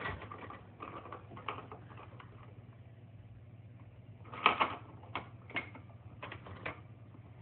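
Plastic toys on a baby activity center being handled and knocked, a scattered run of clicks and taps with the loudest cluster about four and a half seconds in. A faint steady low hum lies under it.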